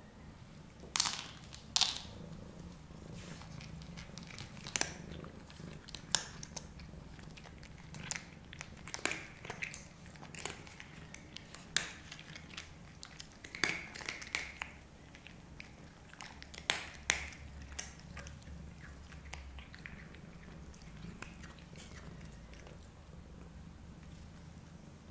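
Scottish Fold cats crunching dry kibble: sharp, irregular crunches as they bite and chew, thinning out in the last several seconds.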